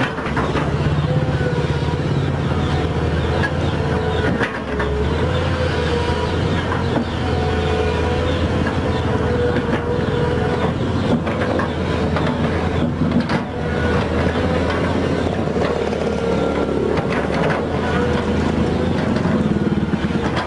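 Volvo excavator's diesel engine running steadily while it works, with a steady higher hum over the engine drone and a few short knocks.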